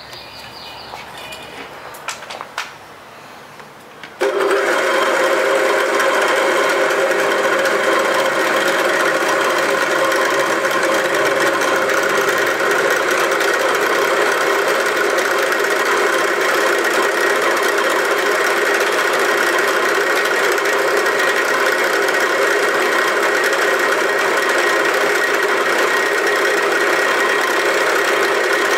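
A few light clicks, then about four seconds in a bench drill press switches on and its motor runs loud and steady with a constant whine. The spinning tool is pressed against a wooden board, rubbing hard enough to raise smoke.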